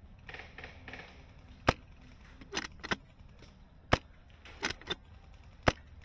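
Airsoft rifle firing single shots: three sharp, loud cracks about two seconds apart, with softer clicks and knocks between them.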